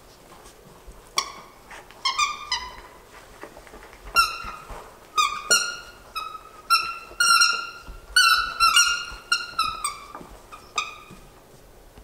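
Yorkshire terrier puppies yipping and squealing in play: many short, high-pitched yips, some in quick runs, starting about a second in and coming thickest in the middle.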